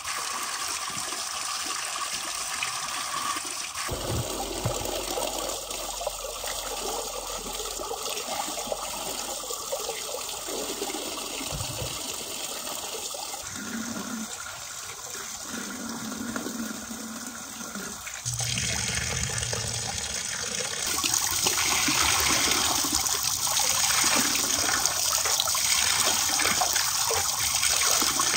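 Running water pouring from a pipe into a metal pot while hands rinse and rub greens in it, splashing. It steps up and gets louder about two-thirds of the way through.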